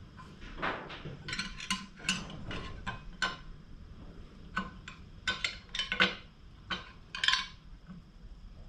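Small steel knife blade clinking and scraping against a glass dish as it is worked about in a dark liquid bath: a string of irregular light knocks and scrapes, the sharpest about six and seven seconds in.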